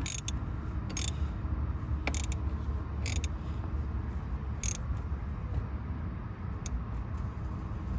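Handling noise from work on a cold air intake tube and its clamps: a few separate sharp clicks, roughly one a second for the first five seconds, over a steady low rumble.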